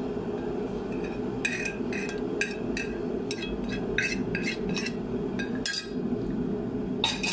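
Crockery and cutlery clinking lightly: a quick run of short, ringing clinks over a steady low hum.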